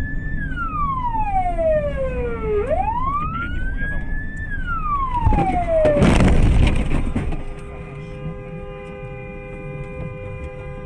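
A siren wails, sweeping up and down in pitch twice, and is cut by a loud car collision crash about five to six seconds in, the loudest sound. After the crash a steady tone of several notes holds without change.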